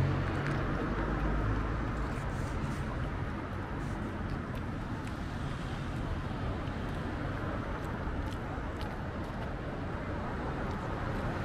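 Street traffic: cars passing on the road, with a low engine rumble that fades over the first couple of seconds, then a steady background of traffic noise.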